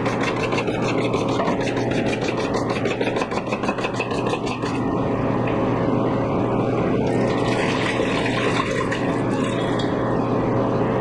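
Stiff plastic brush scrubbing across the aluminium fins of a split air conditioner's indoor coil, a fast rhythmic scratching that stops about five seconds in. A steady hum and hiss runs underneath.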